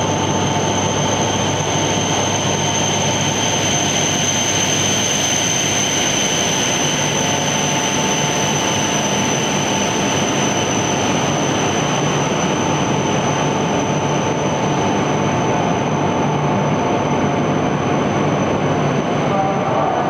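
E5 series Shinkansen high-speed train pulling in along a station platform: a steady, loud rush of running noise with a constant high whine over it.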